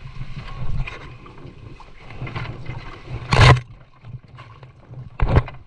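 Two short, loud splashes of water beside a small paddled fishing boat, about three seconds in and again near the end, over a low steady rumble.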